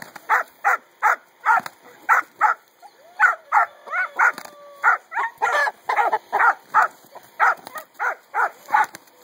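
A dog barking over and over, short sharp barks at about two to three a second with hardly a break.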